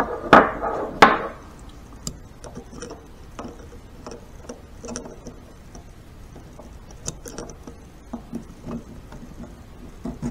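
Screwdriver working a retaining ring up the splined main shaft of a Harley five-speed transmission: two sharp metal clinks about half a second apart near the start, then light irregular ticks and scrapes of metal on metal as the ring is worked up over the gear teeth.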